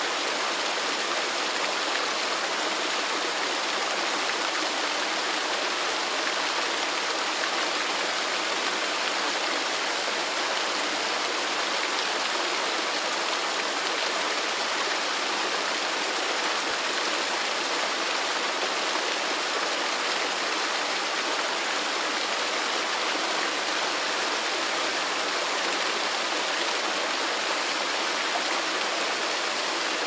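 Several waterfalls pouring down a rock face into a pool: a steady, even rush of falling water, mostly hiss with little deep rumble.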